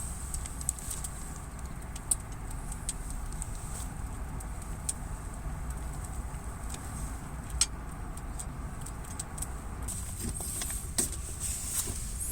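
Wood campfire burning, with sharp crackles and pops every second or two over a steady low rumble.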